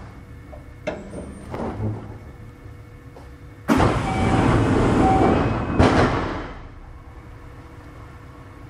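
A sudden burst of compressed-air hiss from a Kintetsu 6620 series commuter train standing quietly, lasting about three seconds with a clack near its end before fading. This is typical of the pneumatic equipment venting air, such as the doors working or the brakes releasing.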